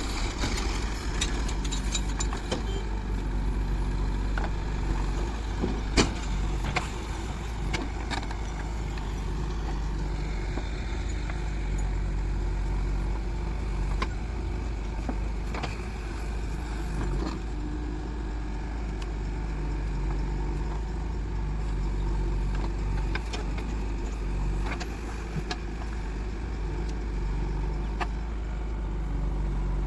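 Diesel engine of a JCB 3DX backhoe loader running steadily, its pitch shifting a little as the load changes. Occasional sharp knocks and clanks sound over it, the loudest about six seconds in.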